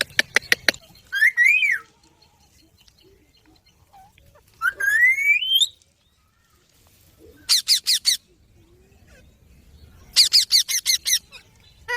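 Indian ringneck parakeets calling. A quick run of short clicks comes first, then two rising calls, the second long and sliding upward. Two rapid bursts of short harsh squawks follow, the second with about eight calls.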